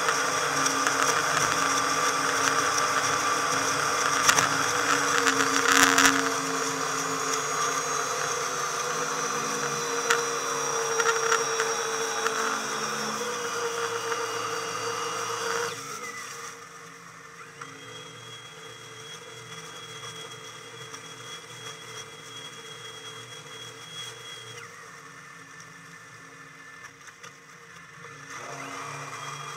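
Boat engine running underway, its sound sped up fourfold into a high, blender-like whir, with a few thumps about four to six seconds in. About halfway through it drops sharply in loudness and pitch as the boat throttles back coming into the marina, then runs on steadily and quieter.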